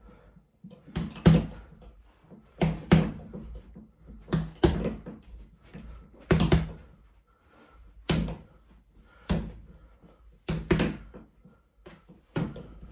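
Bare fists punching a 70 lb Venum Classic heavy bag: about a dozen dull thuds, many in quick one-two pairs, a second or two apart.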